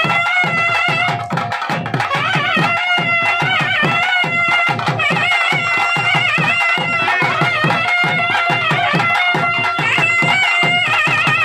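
Traditional South Indian temple music: a reed wind instrument plays a wavering, ornamented melody over rapid, continuous drumming on double-headed barrel drums.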